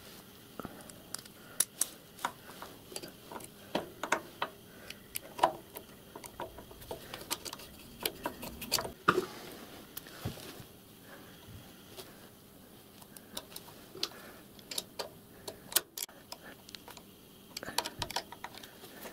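Irregular small metallic clicks and taps of a brass hand pump and its screws being handled and fitted against a locomotive's steel frame, with a screwdriver in use near the end.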